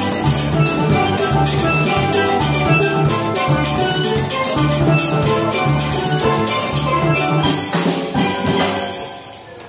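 Steel pan band playing an upbeat tune with a drum kit keeping a steady beat and a bass guitar underneath. The band stops together about seven and a half seconds in, and the pans ring on briefly and fade.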